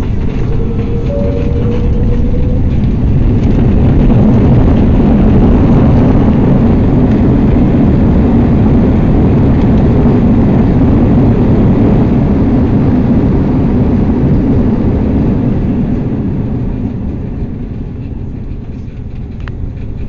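Airliner cabin noise during the landing roll: a loud, dense rushing roar of the engines and airflow as heard inside the cabin. It builds over the first few seconds, holds, then fades over the last several seconds as the plane slows.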